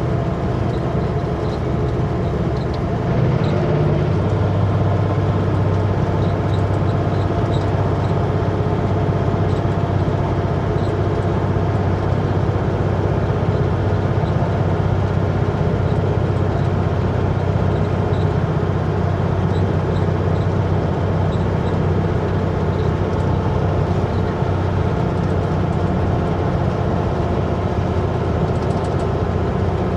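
Diesel engine of a loaded Kenworth W900L semi truck running steadily under load on the highway; about three to four seconds in it grows louder and deeper, then holds steady.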